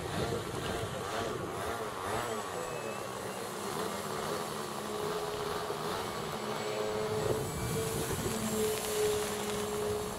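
Electric RC aerobatic plane (profile CAP, brushless outrunner motor turning a 14x6 propeller) flying overhead with long ribbon streamers fluttering behind it. About halfway through, as it climbs, a steady propeller tone comes in.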